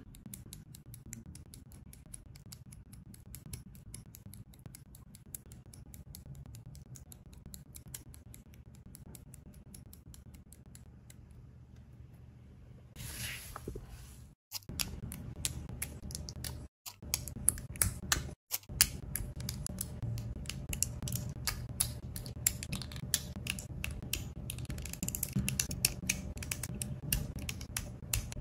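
Cinematic background music with a fast, steady ticking beat over a low drone. It breaks off briefly about halfway through, then comes back fuller and louder.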